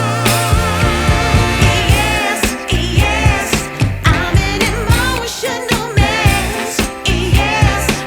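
Background song with singing over a steady beat.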